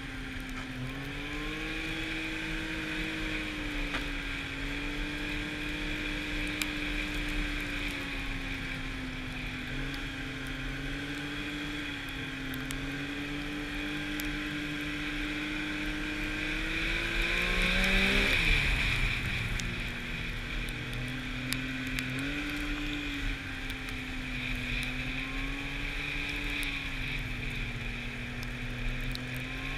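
Arctic Cat snowmobile engine running at trail speed, its note rising and easing with the throttle. A little past halfway the sound swells louder and the pitch then drops steeply before settling back into a steady cruise.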